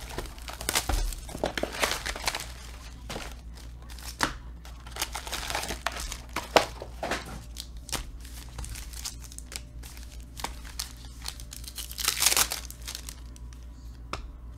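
Foil trading-card pack wrappers of Donruss Elite football packs crinkling and tearing as they are opened by hand, in irregular bursts, the loudest about twelve seconds in.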